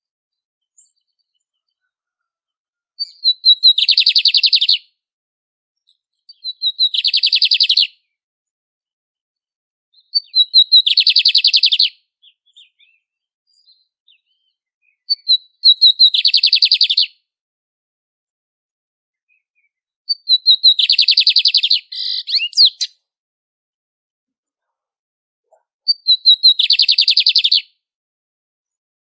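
Lined seedeater (bigodinho) singing: six song phrases about every five seconds, each a few short notes running into a fast, dense trill.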